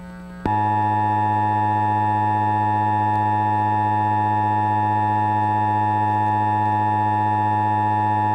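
Emergency Alert System attention signal: a loud, steady two-tone electronic tone that starts abruptly about half a second in and holds unchanged for about eight seconds, then cuts off.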